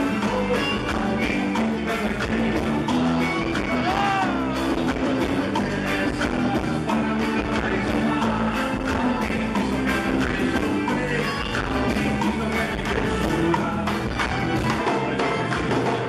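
Live band playing loud amplified music through a PA system, with a male singer's voice and a steady drum beat.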